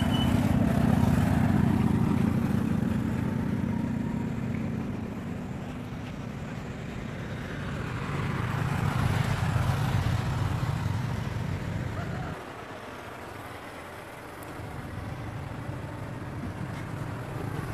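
Low, steady rumble of a vehicle engine running close by, with the sound of a passing vehicle swelling and fading around the middle. The rumble drops off abruptly about twelve seconds in, then a quieter rumble returns.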